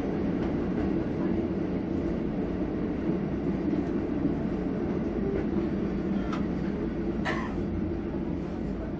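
JR Hokkaido KiHa 54 diesel railcar running along the line, a steady low diesel and wheel rumble heard from inside the cab, easing slightly near the end.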